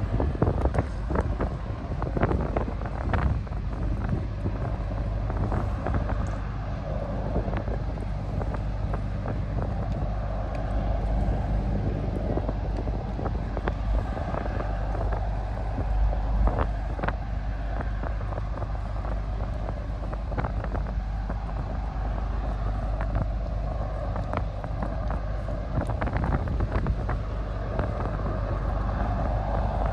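Low, steady drone of a departing Blue Star car ferry's engines, with wind buffeting the microphone, gusting hardest in the first few seconds.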